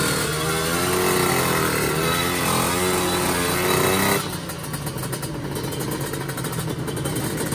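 Drag-racing motorcycle engine revving hard in place, the revs rising and falling repeatedly, then dropping abruptly to a lower, pulsing idle about four seconds in.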